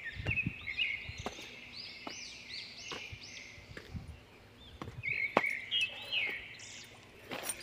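A bird singing a run of quick, repeated arched whistled notes, pausing about four seconds in and then starting again. Under it come footsteps clicking and scuffing on loose stones and gravel.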